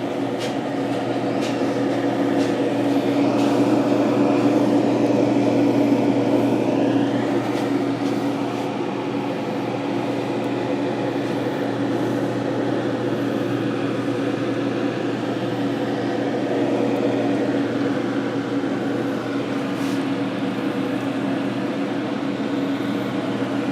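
A steady mechanical hum with a low, even drone that holds level throughout, and a few faint clicks near the start.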